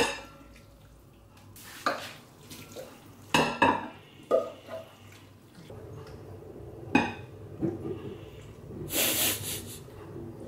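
Kitchen utensils knocking and scraping against a saucepan and ceramic bowls as pasta is served out. There are a few separate clinks and knocks, and a longer scrape near the end as sauce is spooned out of a bowl.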